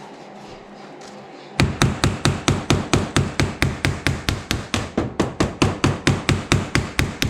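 Rapid, even hammer taps on metal, about five strikes a second, starting about a second and a half in and keeping up without a break, as a part is driven in flush during engine assembly.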